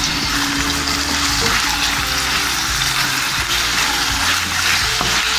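Raw chicken pieces sizzling in hot oil in a pan with a steady hiss, being stirred and turned with a spatula.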